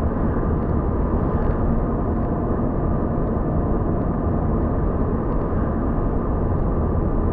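Steady road noise inside a moving car's cabin: a low, even drone of tyres and engine.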